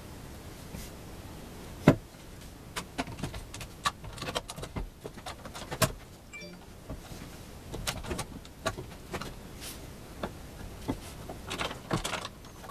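Irregular light clicks and knocks of workshop tools and wood being handled, with one sharper click about two seconds in.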